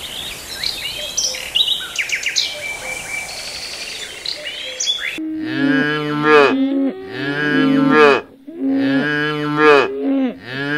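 Small birds chirping over a steady hiss, then calves mooing: about four drawn-out deep moos, one after another, some overlapping, starting about five seconds in.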